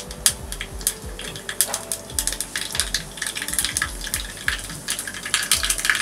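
Mustard seeds spluttering in hot oil in a small steel tempering pan: quick, irregular popping and crackling, thickest near the end.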